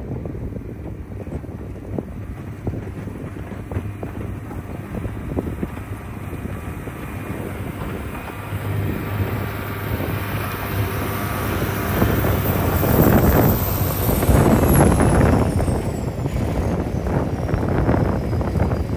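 John Deere 670 GP motor grader's diesel engine running under load, with wind on the microphone. It grows louder about two-thirds of the way through, and a faint high whine falls in pitch near the end.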